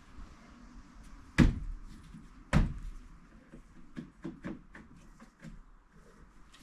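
Two sharp knocks about a second apart, then a string of lighter clicks and taps, from plastic trim parts being handled and fitted around a car's boot lid.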